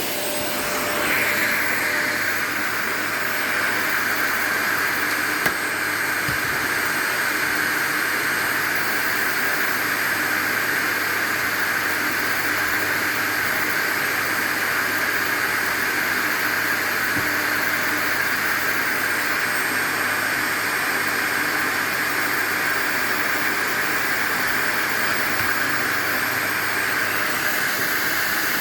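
Vacuum cleaner running steadily, a continuous airy hiss that steps up in level about a second in. A single sharp click about five seconds in.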